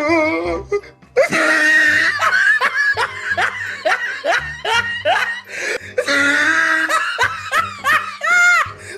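Laughter, a quick run of ha-ha bursts at about three a second, over background music with a steady beat.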